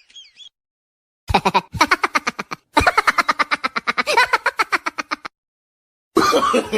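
A laughing sound effect: a rapid-fire run of short pitched 'ha' bursts, about eight a second, in two stretches with a tiny break between them. A new voice-like laugh starts near the end.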